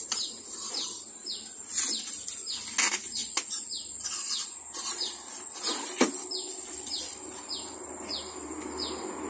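Packing tape pulled off the roll and pressed around a cardboard box, with a few short, sharp rips. A bird calls steadily behind it, short falling high notes about twice a second.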